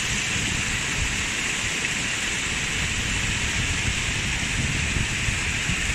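Stormwater runoff from the heavy rain rushing and splashing over rocks and rubble in a shallow stream across the beach, a steady, even rush of water.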